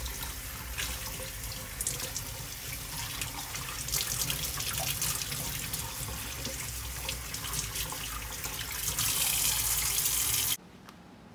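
Tap water running into a stainless steel sink while hands rinse pickled mustard greens on a plate, with small splashes and wet handling of the leaves. The running water grows louder near the end, then cuts off suddenly.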